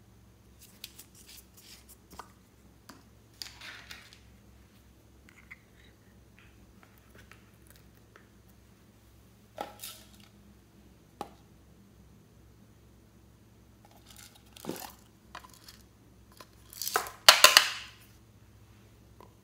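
Slime being handled and mixed by hand: scattered sticky clicks, crackles and squelches, with a louder run of crackling squishes near the end.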